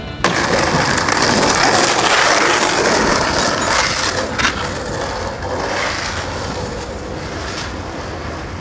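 Skateboard rolling and scraping, a rough, loud noise that starts suddenly just after the start and slowly eases off, with a couple of sharp knocks about four seconds in.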